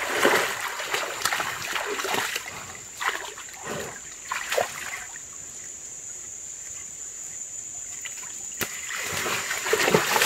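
Water splashing and trickling in irregular bursts while a mini bull is washed in a shallow creek. The splashing is busiest in the first few seconds and thins out after about five seconds. A steady high-pitched tone runs underneath, and there is a single sharp click near the end.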